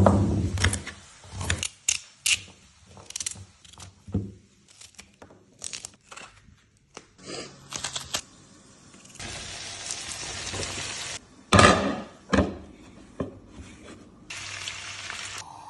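Kitchen prep sounds: a knife cutting vegetables on a wooden chopping board, with irregular knocks and scrapes and a couple of stretches of steady hiss.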